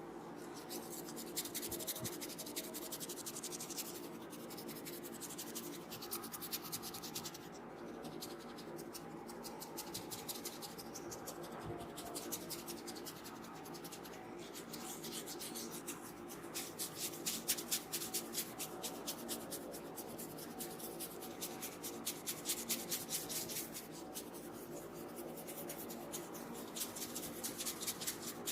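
Hands rubbing and scratching through oiled hair and scalp during a close-miked head massage: a continuous run of rapid, rhythmic scratchy strokes, with stronger pulses for several seconds past the middle.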